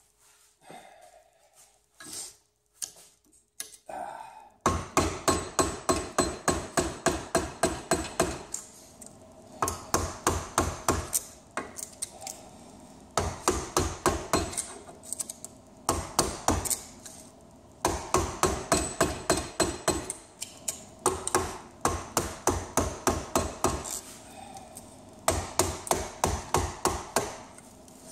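Hammer blows on a screwdriver, driving the copper winding out of a microwave oven transformer's steel core held in a bench vise. A few light knocks come first; then about four and a half seconds in, rapid hammering starts at about five blows a second, in runs of a few seconds with short pauses.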